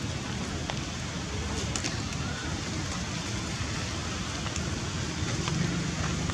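Steady outdoor background noise, an even rushing hiss with a few faint, scattered crackles.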